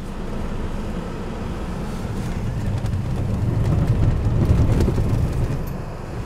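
A vehicle driving along a rough gravel track: a steady low engine and tyre rumble that grows louder toward the middle.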